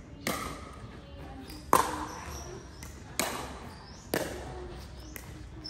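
Rally in a racket-sport doubles game: five sharp hits on the ball, about a second to a second and a half apart, the second the loudest.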